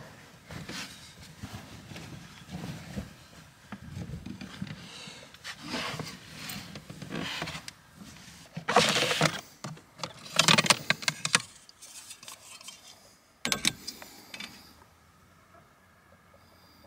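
Gear being handled and shifted about in a pickup's camper shell: rustling and clattering, with louder bursts about halfway through and a sharp knock, then it goes quiet near the end.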